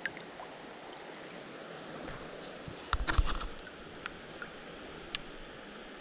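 Shallow creek water running steadily, with a brief burst of splashing and knocks about three seconds in and a single sharp click near the end.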